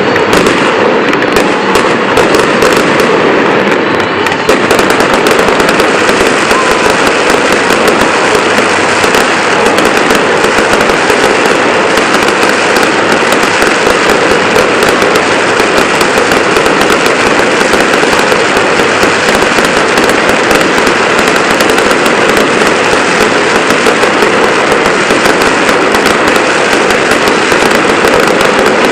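Fireworks crackling in a loud, dense, unbroken barrage of rapid pops.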